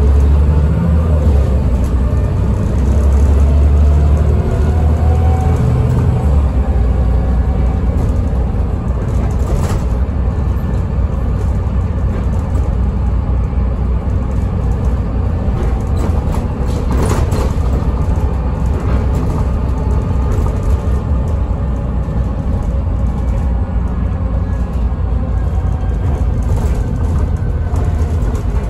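Volvo B7TL double-decker bus with a ZF automatic gearbox, heard from inside the saloon while under way. A steady low diesel engine rumble, loudest in the first few seconds, runs under a fainter gearbox whine that rises and falls as the bus accelerates and shifts. There are a few knocks and rattles from the body.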